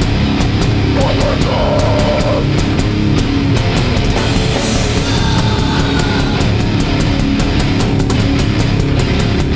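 Hardcore band playing live with no vocals: heavily distorted electric guitars and bass over a fast drum beat, with rapid, steady cymbal hits.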